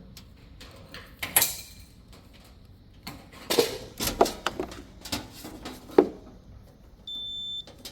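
Irregular clicks and knocks as a wiring-harness connector is pulled out and handled inside a washing machine, then near the end a steady high beep lasting about half a second from a multimeter's continuity test.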